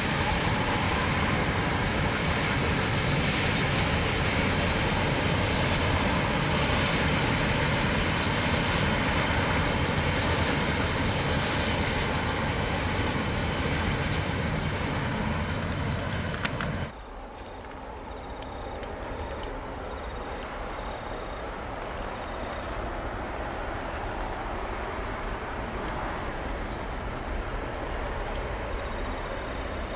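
KiwiRail container freight train's wagons rolling along the track, a steady rumble, which cuts off abruptly about 17 seconds in. After it, a quieter steady background with a high-pitched hiss.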